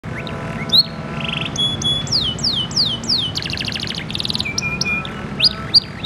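Domestic canary singing a fast, varied song. Quick trills give way to a run of about five downward-sweeping whistles, then a fast buzzy rattle and short steady notes. Sharp high rising-and-falling notes come near the end.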